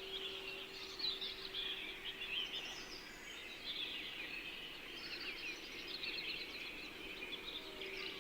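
Forest bird chorus: many small birds chirping and twittering in quick, overlapping calls. Under them a steady held meditation tone hums, fading through the middle and coming back near the end.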